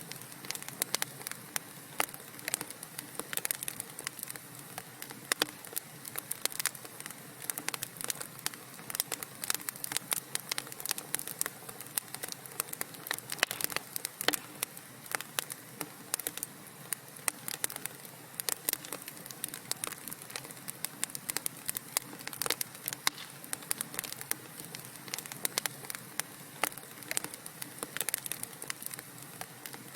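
Wood fire crackling in a fireplace: a dense, irregular run of small pops and snaps over a steady soft hiss.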